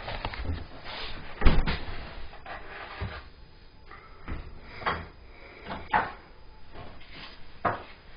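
A refrigerator door shutting with a thump about one and a half seconds in, followed by several lighter knocks and clatters as things are handled on a kitchen cupboard shelf.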